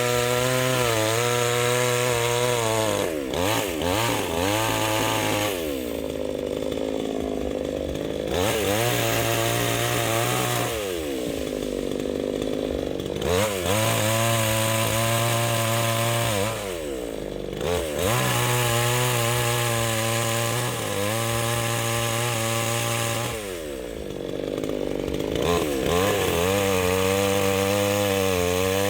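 Chainsaw cutting through a fallen tree trunk. It runs at high revs between cuts and drops in pitch each time it bites into the wood, with a rasp of chips, four or five times over.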